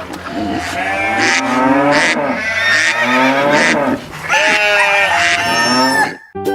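Horse neighing repeatedly: about three long, quavering whinnies, each wavering in pitch and trailing downward.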